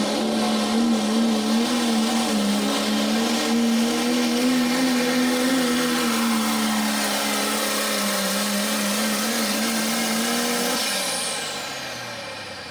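Turbocharged diesel engine of a Dodge Ram Pro Stock Diesel four-wheel-drive pulling truck at full throttle under load, dragging the weight sled with a steady, slightly wavering high engine note. About eleven seconds in, the throttle comes off and the pull ends: the engine note drops and the turbo's high whine winds down.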